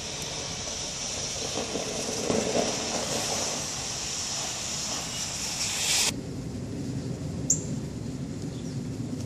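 Steady hiss of traffic on a wet, slushy street, swelling over the first six seconds and then cutting off abruptly. A low rumble is left after that, with one short high chirp.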